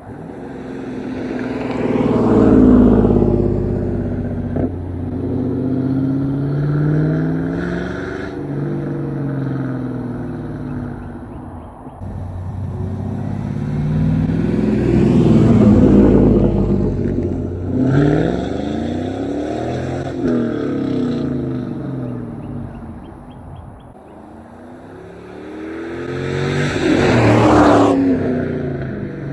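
1998 Pontiac Trans Am's LS1 V8 exhaust under engine braking, heard over three passes, each swelling up loud for a few seconds and then falling away, about twelve seconds apart. Between the peaks the engine note slides down as the revs fall off on the closed throttle.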